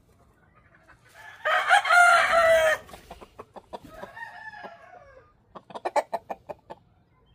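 A rooster crows loudly once, about a second and a half in, for just over a second. A weaker call follows, then near the end a quick run of short clucks.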